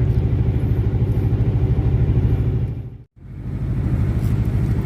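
Fishing boat's engine running steadily with a fast, even low throb; the sound drops out briefly about three seconds in and then resumes.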